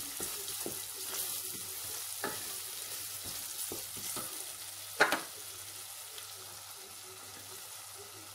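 Onion and ground-spice masala sizzling as it fries in a stainless steel pot, stirred and scraped with a wooden spoon, with a sharp knock about five seconds in.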